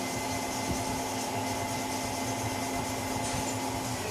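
A machine running steadily: an even whir with a constant hum underneath, unchanging throughout.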